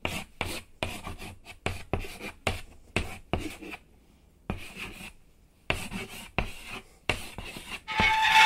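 A series of short scratching or rubbing strokes, about two to three a second, with two brief pauses. Near the end a steady sound with several held pitches comes in.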